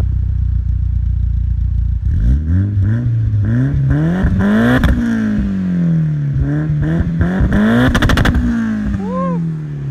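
Mitsubishi Airtrek Turbo's tuned Evolution 4G63 turbo four-cylinder, heard at its large single exhaust tip. It idles, then is revved twice, about two seconds in and again near six seconds, each time climbing in pitch and falling back. A rapid crackle comes at the top of the second rev, and it settles back toward idle near the end.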